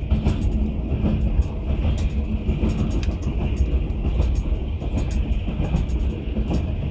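Passenger train running at speed, heard from inside the carriage: a steady low rumble with a steady hum and irregular light clicks of the wheels on the rails.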